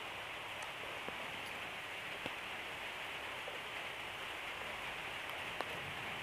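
Steady hissing background noise with a few faint, sharp clicks spread through it, the clearest near the end.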